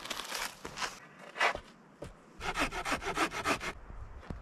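Hand saw cutting through wood in short rasping strokes: a few at first, a single stroke about a second and a half in, then a quick run of about eight strokes in the second half.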